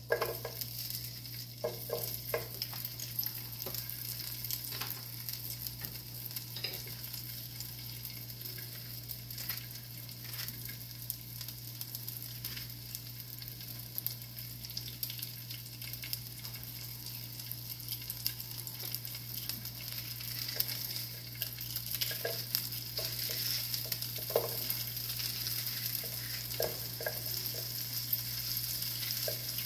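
Chopped onion sizzling in hot oil in a skillet, with scattered small clicks and taps as more pieces are cut and dropped in. The sizzle grows a little louder in the second half as the pan fills.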